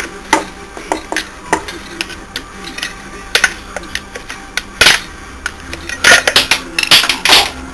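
Irregular clicks and knocks of a plastic ABS controller housing and hand tools being handled on a steel workbench, with a run of louder clatters near the end.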